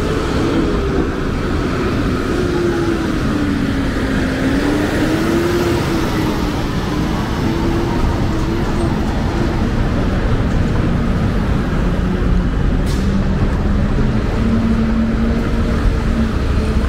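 City street traffic: a steady wash of passing cars and buses, with one heavy engine's hum wavering up and down in pitch and settling lower later on. A single sharp click comes about thirteen seconds in.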